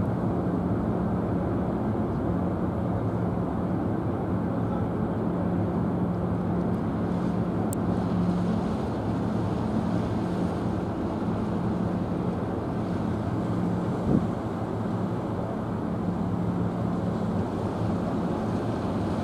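Steady low machinery hum of a berthed car ferry's engines running, with wind on the microphone. A single short knock sounds about 14 seconds in.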